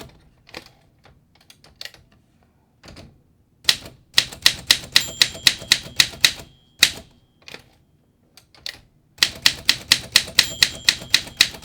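1959 Olympia SM3 Deluxe manual typewriter being typed in two quick runs of about five keystrokes a second, with a few single strokes between them. The strikes are sharp and piercing against a hard platen. A steady ringing tone, the typewriter's line-end bell, sounds near the end of each run.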